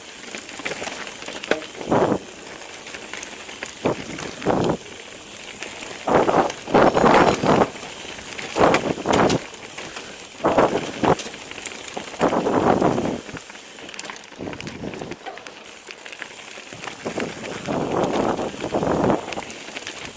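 Mountain bike riding over rocky gravel singletrack: tyres crunching over stones and gravel in irregular bursts of crackly noise, louder over the rougher stretches.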